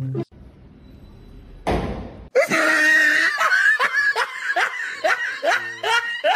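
A person laughing hard and shrilly in a rapid run of pulses, about two to three a second, starting a little over two seconds in after a short burst of noise.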